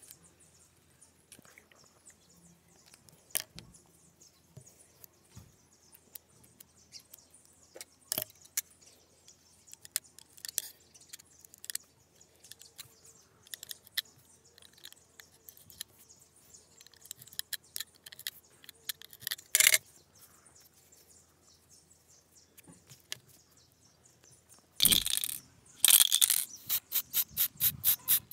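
Faint scattered clicks and taps of hands handling denim strips and a marker pen, with one louder knock. Near the end come two loud hisses from a spray-paint can, then a fast, even run of short spurts as red paint goes onto hanging metal bells.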